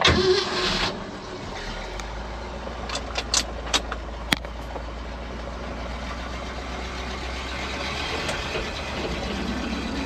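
A vehicle engine running at a steady low idle, after a loud, noisy burst in the first second. A few sharp clicks come about three to four seconds in.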